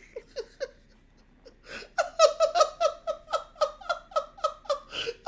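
A man laughing uncontrollably. A few faint breathy huffs and a brief near-silent pause come first. From about two seconds in comes a long run of rapid, high-pitched laugh pulses, about five a second.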